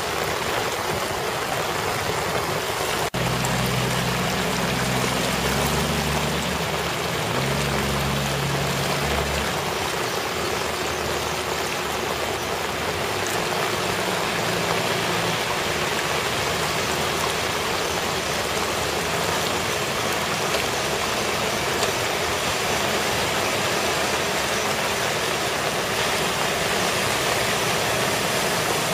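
Steady rushing of heavy rain and floodwater, with cars splashing through deep water on a flooded street. About three seconds in, a vehicle engine runs for several seconds under the rushing.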